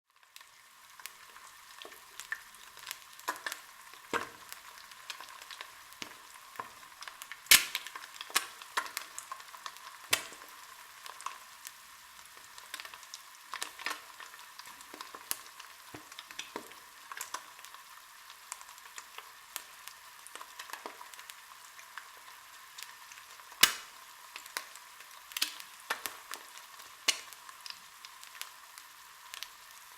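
Egg frying in hot oil in a pan: a steady sizzle with many scattered sharp pops and crackles, the loudest a little past seven seconds and at about twenty-four seconds.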